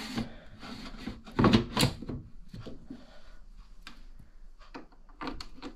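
A Ninja AF451 air fryer's cooking drawer is slid shut, with a couple of sharp knocks about a second and a half in as it seats, followed by a few lighter clicks.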